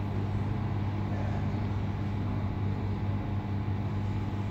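A steady low hum under a constant background rush, unchanging throughout.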